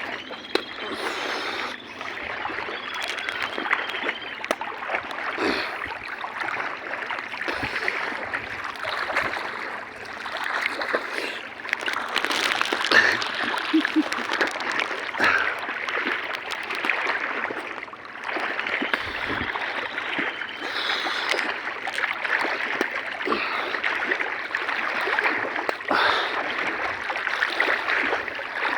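Flowing water running steadily, with scattered small splashes.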